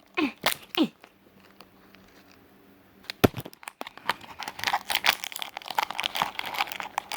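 Plastic packaging crinkling and tearing as a blind-box toy package is opened by hand. A single sharp snap comes about three seconds in, followed by dense, rapid crackling.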